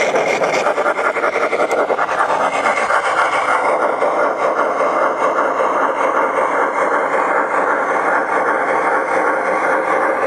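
G scale model Union Pacific Challenger steam locomotive running along the track with a freight train: a steady, fast, even mechanical rattle from its drive and wheels on the rails.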